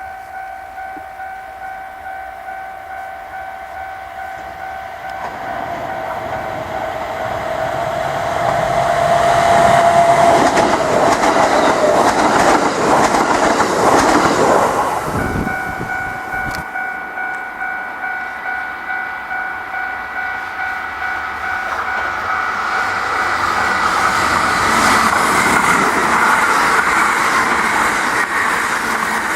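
A railway level crossing's electronic warning bell rings on and on at about two strokes a second while Kintetsu trains run over the crossing. The train noise is loudest about a third of the way in and swells again near the end. The bell's tone shifts about halfway through.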